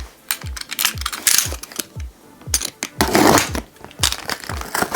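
A cardboard box and its packaging being opened and handled: irregular clicks, scrapes and rustles. Under them is background music with a deep thudding beat.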